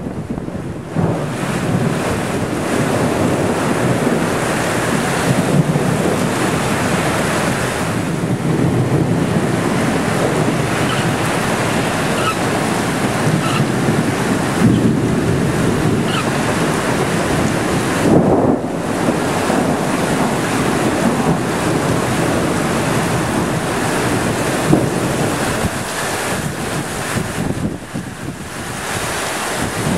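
Torrential thunderstorm rain and strong gusting wind, with the wind buffeting the microphone: a loud, continuous rush that swells and eases with the gusts.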